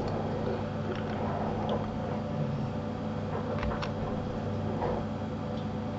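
Steady low hum and hiss of background room noise, with a few faint short clicks.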